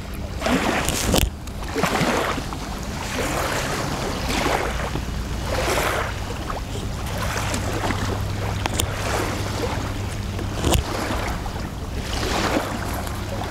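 Wind buffeting the microphone in uneven gusts over a steady low hum.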